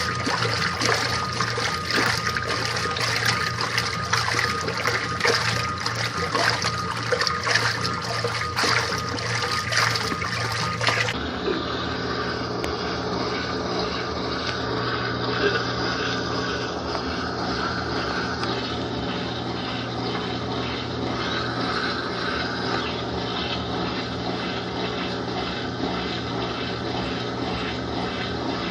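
Washing machine running with water splashing and sloshing over a steady motor hum; about eleven seconds in the sound cuts to a steadier mechanical churning and hum.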